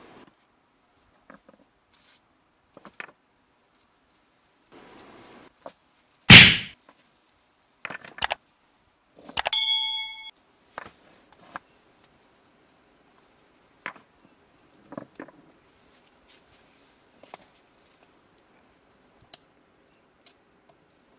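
Subscribe-button animation sound effects: one loud thump about six seconds in, a pair of sharp clicks, then a click with a short bell ding just before the ten-second mark. Otherwise only scattered faint clicks.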